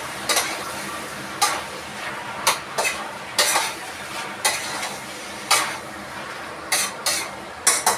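A spoon stirring and scraping chicken breast pieces in a stainless steel pot, with about a dozen irregular clinks against the metal. Underneath runs the steady sizzle of the meat frying.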